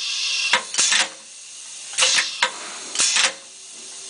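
WSP-07 electro-pneumatic wire stripper cycling: repeated short bursts of air hiss, each starting with a sharp click, about a second apart, as the pneumatic clamp and stripping tool actuate and exhaust.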